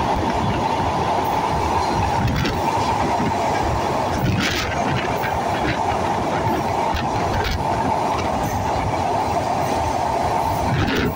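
Train running across the Padma Bridge's steel truss rail deck, heard from aboard: a steady rumble of wheels on rail, with a few sharper clacks at uneven spacing.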